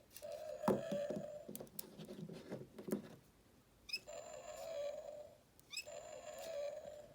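Tinny electronic dinosaur call from a Chasmosaurus toy figure's sound feature, played three times as a buzzy, steady-pitched growl. The last two calls each open with a short rising squeak. Between the calls are clicks and knocks of the plastic figure being handled.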